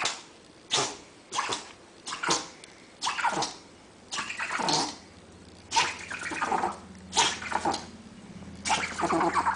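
A pet animal making a string of short, sharp, noisy sounds, roughly one a second.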